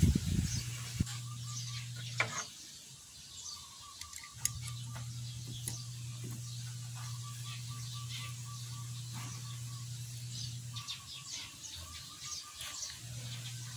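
A brief clatter as the oil bottle is lifted off the filler hole, then light clicks and scrapes as the oil filler cap is fitted and screwed into the motorcycle's crankcase. Birds chirp and a steady low hum cuts out twice.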